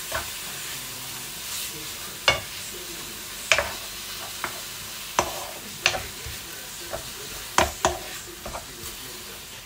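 Marinated beef strips sizzling in a hot pan as they are stir-fried, with a utensil knocking sharply against the pan about half a dozen times at uneven intervals.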